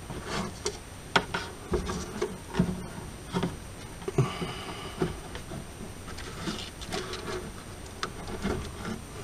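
Irregular small clicks, taps and rustles of hands working plastic printer parts and thin wiring while fitting a small wire connector.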